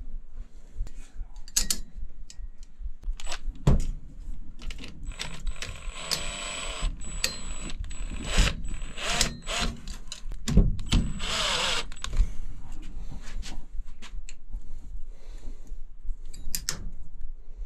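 A small cordless power tool runs in a few bursts between about five and twelve seconds in, with a steady high whine. Sharp clicks and knocks of tools and parts being handled come throughout.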